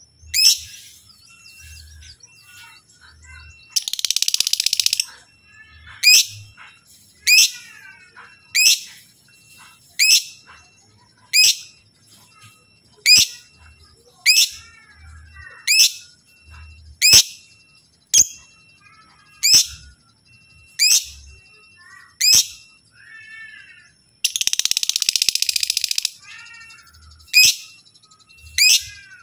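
Blue-mutation lovebird calling: sharp, loud chirps about every second and a half, broken twice by a long, rapid chattering trill (the 'ngekek' cackle), once about four seconds in and again near the end.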